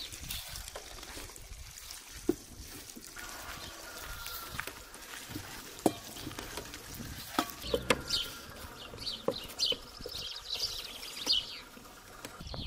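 Water trickling from a kettle onto flour in a metal bowl while hands mix and squeeze the dough, with a few sharp knocks against the bowl. Birds chirp in short repeated calls from about halfway through.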